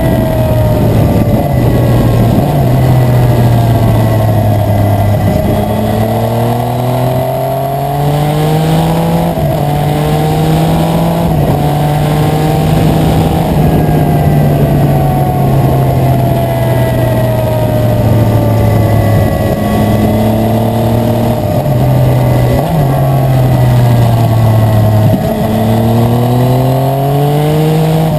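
Yamaha Tracer 900's three-cylinder engine through an aftermarket Akrapovic exhaust, riding: the engine note rises repeatedly as it accelerates, with stretches where it falls away as the bike eases off.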